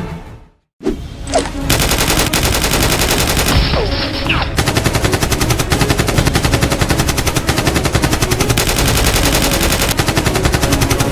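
Rapid automatic machine-gun fire, an action-film sound effect laid over a Nerf blaster being fired. It starts about a second in after a short silence and continues as a fast, steady stream of shots.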